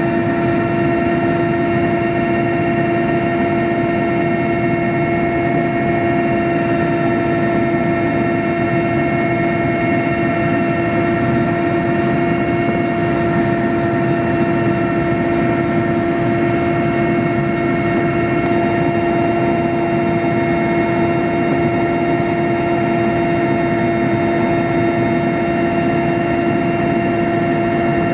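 Aircraft in steady flight: a constant engine and rotor drone with a steady whine over a loud rushing noise, unchanging throughout.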